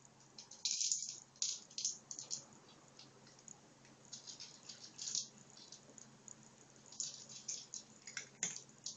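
Dry cat kibble rattling inside an AniOne Snackball, a plastic treat-dispensing ball, as a cat noses and paws it across the floor. The rattle comes in short irregular bursts of shaking, with brief pauses between them.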